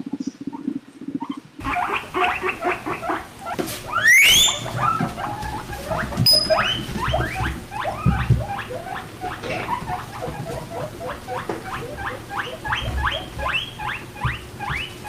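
Guinea pig squeaking in quick runs of short falling squeaks, several a second, with one long rising squeal about four seconds in.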